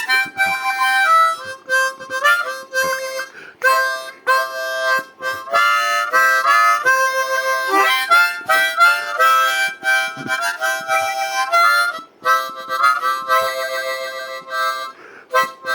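Blues harmonica solo: short phrases of held and bent notes and chords, played between the sung verses.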